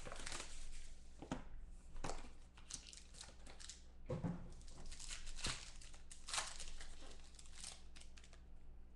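Foil wrapper of a trading-card pack being torn open and crinkled by hand, in irregular rustling bursts that die down near the end.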